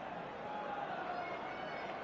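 Football stadium crowd, a steady din of many voices.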